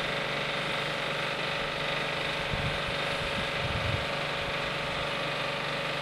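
A vehicle engine idling steadily, a constant hum with a hiss over it.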